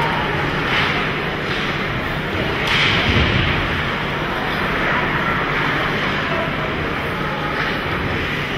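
Steady noise of an ice hockey rink during play, with a brief scrape and a low thud about three seconds in.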